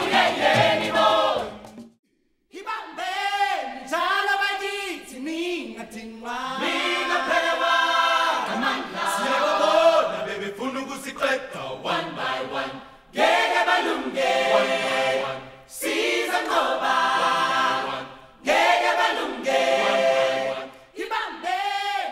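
Background music of a choir singing, apparently unaccompanied, in phrases with short breaks; the sound drops out briefly about two seconds in.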